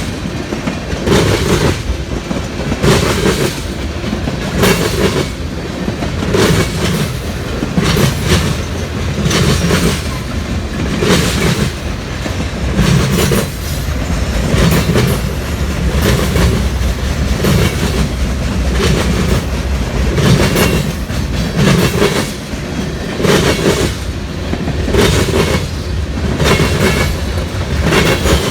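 CSX freight train rolling past, its wheels clacking over the track in a steady rhythm about once a second over a constant low rumble.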